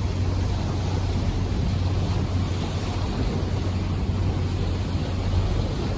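A sightseeing cruise boat's engine gives a steady low hum, under wind on the microphone and the rush of water.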